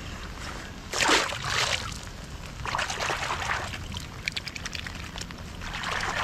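Water splashing and sloshing close by in short bursts, about a second in, around three seconds in and again near the end, with scattered drips in between, over the steady hiss of heavy rain.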